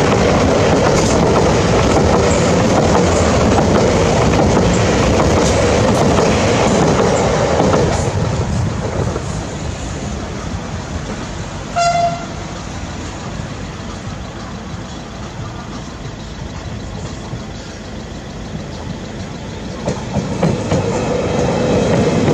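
Electric suburban trains at a level crossing: one passes loudly and fades about eight seconds in. About halfway through there is one short horn toot. From about 20 s a second train arrives and passes, growing loud again.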